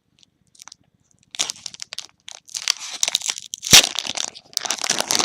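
Trading card pack wrapper being crinkled and torn open by hand, starting about a second in, with a sharp snap about three and a half seconds in.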